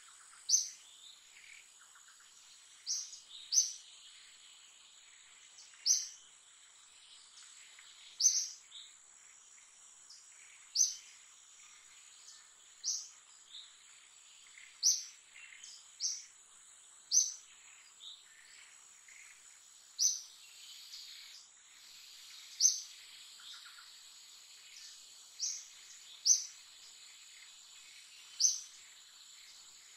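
A bird's short, high chirps, each falling in pitch, repeating every one to three seconds, over a steady high-pitched insect drone.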